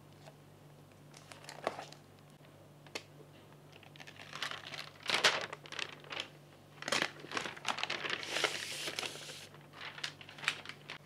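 Protective wrap on a new MacBook Pro laptop crinkling and rustling as it is pulled off, with light taps from handling the laptop. A few faint clicks come first, and the crinkling is strongest from about four seconds in.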